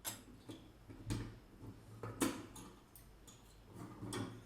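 Small kitchen tool pieces being handled, giving several light clicks and knocks spaced irregularly about a second apart.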